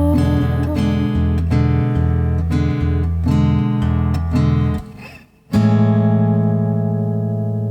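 Acoustic guitar strumming the steady rhythm of a Chilean tonada, with a bass note on each beat. About five seconds in it stops, and after a brief gap a sustained ringing chord starts suddenly and holds.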